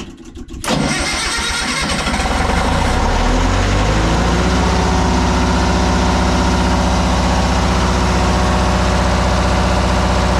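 MEP-003A diesel generator's two-cylinder engine starting: a brief crank, then it catches within the first second. It rises in speed over the next few seconds and settles into a steady run at governed speed.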